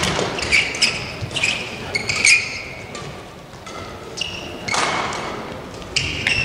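Badminton players' court shoes squeaking in short chirps on the court mat, with scattered footfall thuds.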